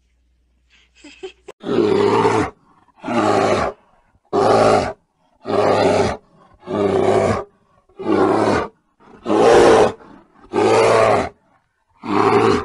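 Brown bear roaring repeatedly: about nine long roars, each under a second, evenly spaced a little over a second apart.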